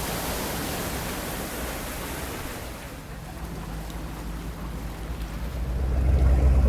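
Motorboat under way: a steady rush of water and wind over a low engine hum, the engine growing louder near the end.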